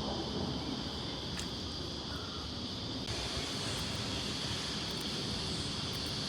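Outdoor ambience: a steady noisy hiss with wind and rustling, carrying a constant high-pitched buzz; the texture shifts slightly about three seconds in.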